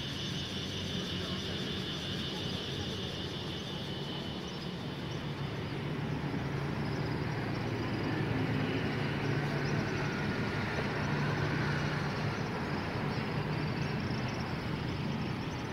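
Steady city traffic noise, swelling between about 8 and 12 s as vehicles pass nearby. A high steady buzz sits over it for the first five seconds or so, then fades.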